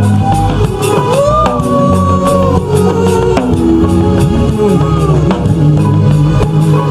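Live gospel band music with a drum kit and bass keeping a steady beat under a held melody line that slides between notes.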